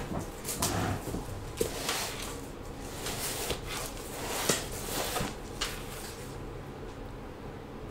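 Handling noise: a scatter of light knocks, clicks and rustles, as of objects being moved about on a table, dying away about six seconds in and leaving a steady low room hum.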